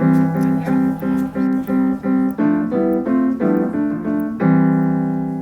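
Background piano music: a light figure of short repeated notes and chords, about three a second, ending on a held chord that rings and fades from about four and a half seconds in.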